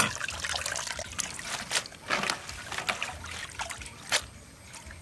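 Water trickling and splashing, with scattered clicks and knocks.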